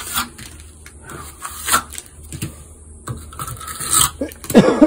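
Steel hand trowel scraping and pressing wet stucco mud onto a wall patch in short, uneven strokes. Near the end a man gives a short vocal exclamation, the loudest sound.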